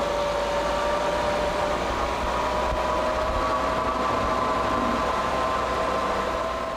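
Electric motor of a BMW C1-E scooter whining steadily as it rides, its pitch creeping slowly upward as it gathers speed, over a hiss of road and wind noise.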